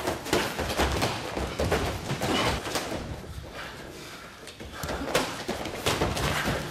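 An irregular run of thuds and slaps from MMA sparring: strikes landing and bodies hitting the mat.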